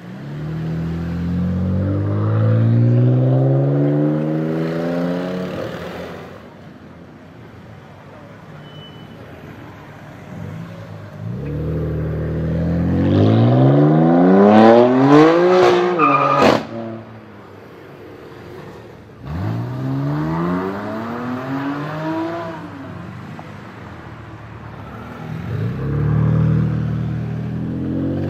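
Twin-turbo inline-six of a BMW M4 F82 with a loud Fi aftermarket exhaust, accelerating hard four times, its pitch climbing on each pull. The loudest pull comes about halfway through, rising steeply and then cutting off abruptly.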